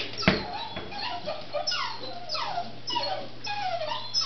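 Basset hound puppies whining and yipping: many short high whines, each sliding down in pitch, overlapping several a second. A sharp thump about a third of a second in.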